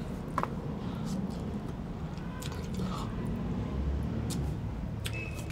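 A person chewing food, with a few faint clicks and taps scattered through.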